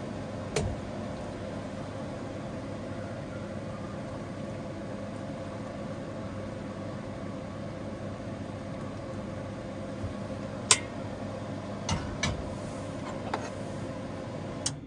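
A steady mechanical hum, like a small fan motor running, with a few sharp clinks of dishes or a mug, the loudest about eleven seconds in.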